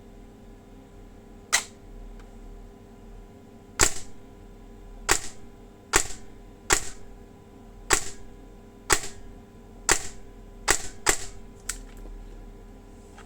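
Airsoft electric gun with an 18:1 DSG gearbox and a T238 29k active-cooled brushless motor firing single shots on semi-auto: eleven sharp shots, irregularly spaced about a second apart, each with a brief whir of the gearbox cycling.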